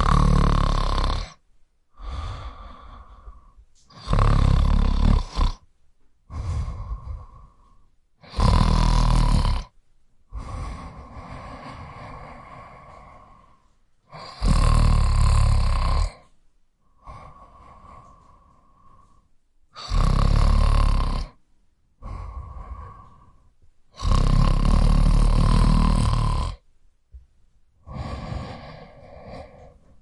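A person snoring in a steady sleep rhythm: six loud, rattling inhaled snores about every four to six seconds, each followed by a softer breath out.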